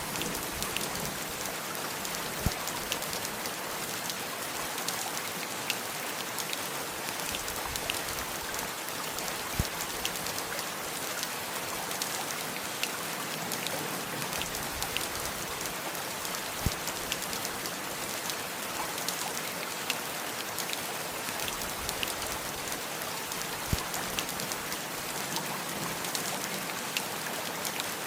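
Steady rain falling, a dense even patter with a sharper tick of a single heavy drop every few seconds.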